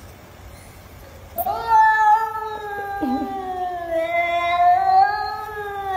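A cat's long, drawn-out warning yowl, a low moaning cry held for several seconds that wavers slowly up and down in pitch. It starts about a second and a half in.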